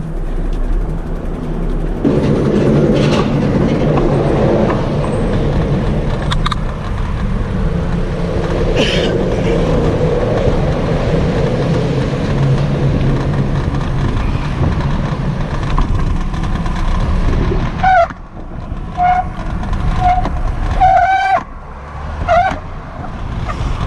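Road traffic droning across a steel bridge, mixed with wind on the microphone as a bicycle rides along its walkway. About 18 seconds in, the drone dips and several short, high squeals rise in pitch.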